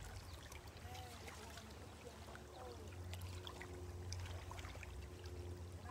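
Faint lake water lapping and trickling among shoreline rocks over a steady low hum, with a few light clicks and a couple of faint short calls in the distance.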